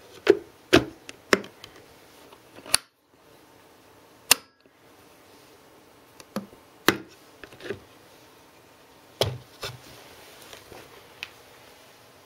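Handling noise from a wooden coil-ignition battery box: a string of about ten sharp clicks and knocks, spaced irregularly, as its lid and metal crocodile-clip leads are moved about.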